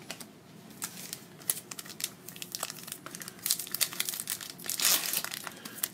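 Plastic foil wrapper of an Upper Deck hockey card pack being torn open and crinkled by hand, in quick irregular crackles, loudest about four to five seconds in.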